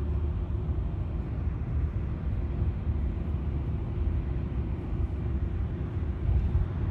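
Steady low rumble of a car travelling at highway speed, heard from inside the cabin: engine and tyre noise on the road.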